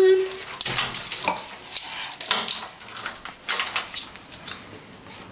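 An irregular run of sharp clicks and clattering knocks, several a second, stopping near the end.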